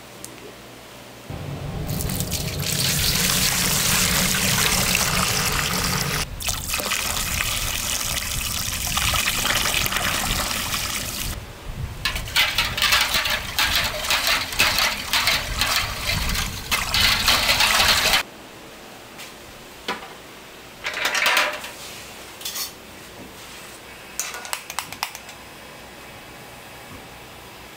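Water running hard, splashing irregularly in its second half, then cut off suddenly about 18 seconds in. Afterwards come a few short knocks and rattles.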